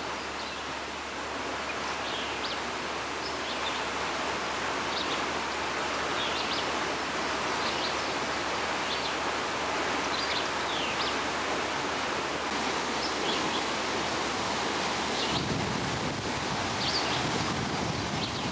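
Steady rushing noise of a fast-flowing flooded river, with faint short high chirps scattered through it. A low rumble joins near the end.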